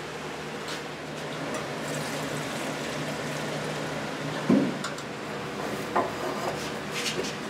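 Window box fan running with a steady hum and rush of air. Partway through, acetone is poured from its metal can into a small open can, with a knock about four and a half seconds in and a few lighter clicks near the end.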